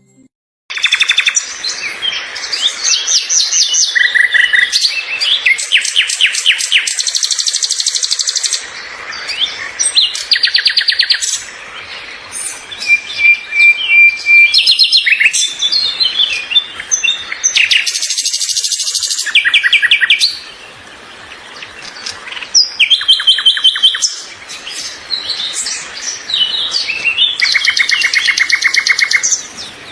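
Several small birds chirping and singing over one another, with loud fast trills of rapidly repeated notes and sharp chirps, and a short held whistled note about thirteen seconds in.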